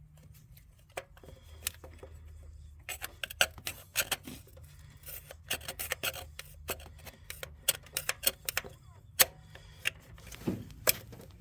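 Old thermostat gasket being scraped off the engine's thermostat housing mounting surface: a quick, irregular run of sharp scratches and clicks, sparse at first and thicker from about three seconds in.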